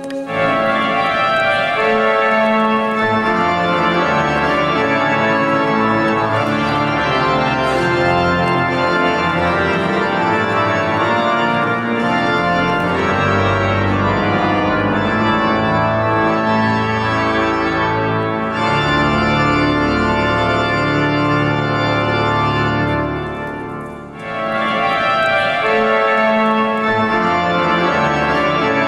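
Church pipe organ playing full, sustained chords, with a short drop in loudness about four-fifths of the way through before it swells back.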